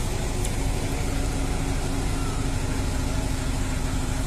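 The aerial ladder fire truck's engine running steadily, a constant low rumble with a steady hum.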